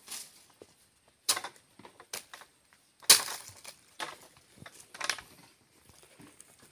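A blade chopping at the stalk of a harvested oil palm fruit bunch: several sharp chops about a second apart, the one about three seconds in the loudest.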